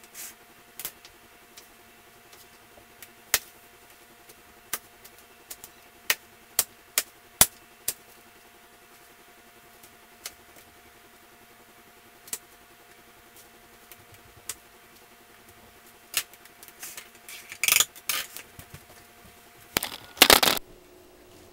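Kitchen knife chopping bell pepper on a plastic cutting board: sharp, irregular taps of the blade on the board, mostly a second or more apart, over a faint steady hum. In the last few seconds come louder rustling knocks and scrapes.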